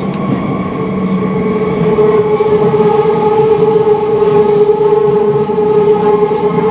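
MF77 Paris Métro train running, heard from inside the car: a steady rumble with a steady whine in several pitches that grows louder about two seconds in.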